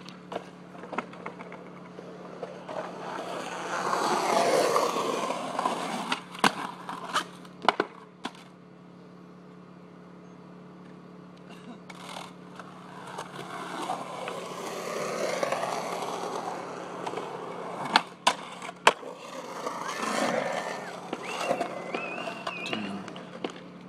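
Skateboard wheels rolling on concrete, swelling and fading over three runs, with sharp clacks of the board popping and slapping down during frontside blunt attempts on a concrete ledge. A steady low hum runs underneath.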